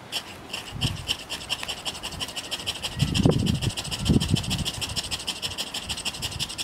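Ferro rod struck rapidly into a dry-grass tinder bundle: a fast, regular scraping of several strokes a second, throwing sparks that begin to catch in the tinder. Two louder low whooshes come about three and four seconds in.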